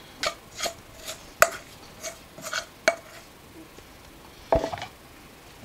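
A metal spoon clinks and scrapes against a blue enamelware bowl as biscuit dough is worked out of it onto a floured pastry cloth. About seven sharp ringing clinks come roughly two a second, then a heavier knock of the bowl comes near the end.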